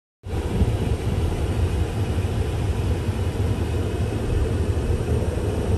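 Steady road and engine rumble heard inside a moving car's cabin, a low drone with a fainter hiss above it, cutting in abruptly about a quarter second in.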